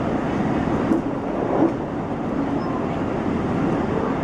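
Electric commuter train running at speed, heard from inside the front carriage: a steady rumble of wheels on the track with a few faint clicks.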